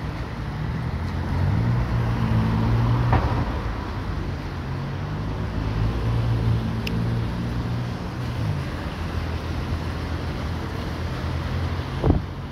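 Road traffic on a wet city street: vehicle engines running with a steady low hum, and car noise on the wet tarmac swelling a couple of seconds in. A sharp knock sounds about three seconds in and another just before the end.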